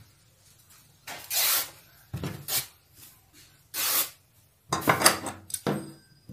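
Blouse lining fabric rustling and swishing across a wooden worktable in several short bursts, then large tailor's shears cutting through the cloth near the end.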